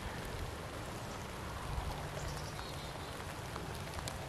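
Rain falling steadily, with scattered single drops ticking close by.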